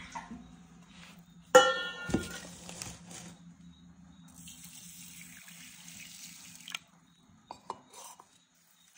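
Rice being washed by hand in a vessel of water: a sharp ringing clink of the vessel about a second and a half in, splashing, then water running for a couple of seconds, followed by a few light knocks.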